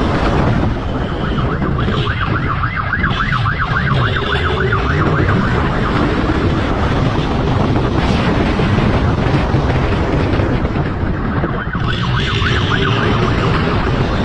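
Police siren sounding a fast yelping warble, heard in two stretches, over a motorcycle engine running and wind rushing over the microphone.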